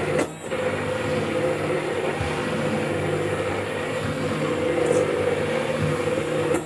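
Hand-held immersion blender running steadily in a tall plastic jug, emulsifying egg, garlic, olive oil and lemon juice into alioli. It dips briefly just after the start and cuts off near the end.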